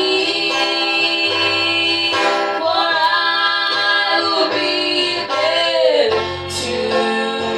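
Two women singing a gospel song into microphones, with acoustic guitar accompaniment.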